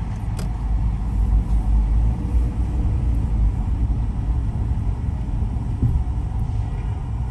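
Steady low rumble of a car driving on city streets, heard from inside the car, with a faint click about half a second in.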